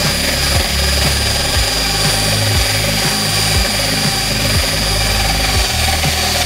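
Electric drill running steadily with a high motor whine, spinning a meat grinder knife against wet sandpaper to sharpen it.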